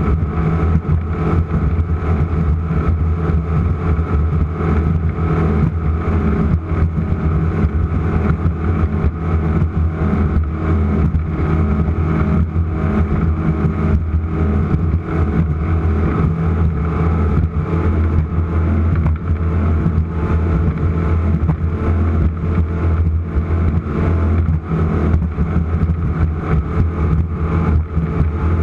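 Offshore race boat's engines running flat out, a steady loud drone that holds its pitch throughout.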